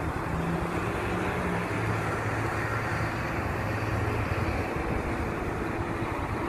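Road traffic: a steady rushing noise with a low engine hum that is strongest through the first half and fades later.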